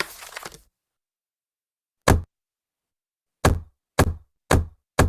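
Old rubber stamp being stamped down onto paper with dull thuds. A short rustle fades out at the start, then after a second of silence comes one stamp, and from about three and a half seconds in a quick run of stamps, about two a second.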